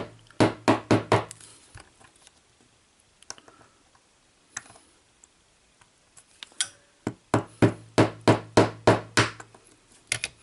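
The end of a large screwdriver tapping on a small screwdriver used as a punch, driving the pivot pin out of a cassette deck's pinch roller assembly, which is slowly coming out. A quick burst of about five taps comes first, then a pause of several seconds, then a run of about ten taps at roughly three a second.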